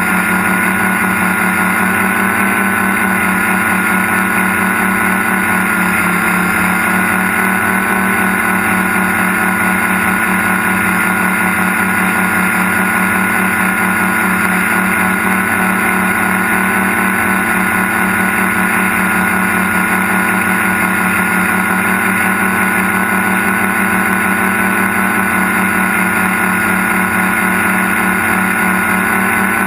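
Multirotor tricopter's electric motors and propellers whining steadily in level flight, heard through the aircraft's own onboard camera.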